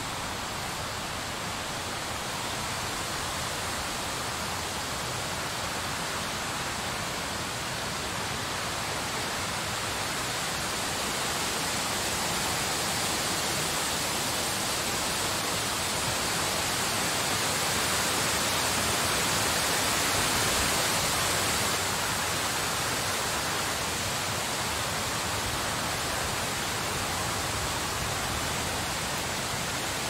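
Snowstorm wind blowing as a steady, even hiss, swelling gradually to its strongest about twenty seconds in, then easing a little.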